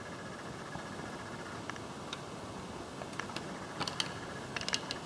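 Light, scattered clicks and taps of a screwdriver and a plastic switch cover plate as the plate is worked off a wall switch box, more of them in the second half, over a steady background hiss.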